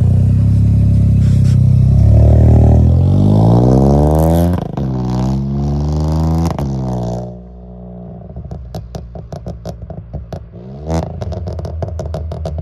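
Stage-one-tuned VW Polo TSI with a DSG gearbox, downpipe and full exhaust accelerating hard from a standstill. The engine climbs in pitch, and two upshifts each break in with a sharp crack, the DSG fart. The car then fades as it drives away, and a run of faint rapid ticks follows.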